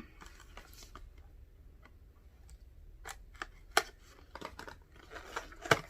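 Scattered sharp clicks and snips of a plastic safety seal being worked off a toner bottle, with two louder snaps, one a little past halfway and one near the end.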